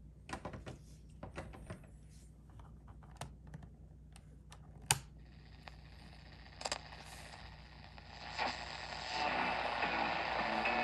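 Clicks and taps of a Philips D1835 Compass portable radio being handled and its slide switches pressed, the loudest click about five seconds in. Right after it the speaker's static hiss comes up, and near the end, as the tuning knob is turned, a station's audio starts coming through under the static.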